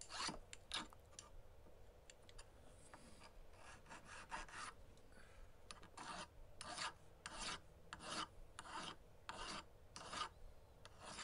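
Hand file rasping across a small silver ring in repeated strokes, rounding off its outside. The strokes are faint, fainter and irregular at first, then come steadily about one every half-second or so from about halfway through.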